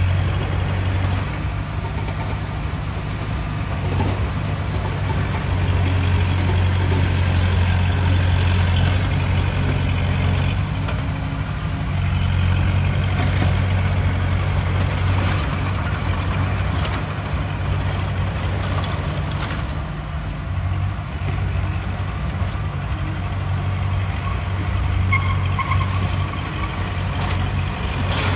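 Heavy diesel earthmoving machinery running under load, a deep steady drone that grows louder twice, with a few brief knocks.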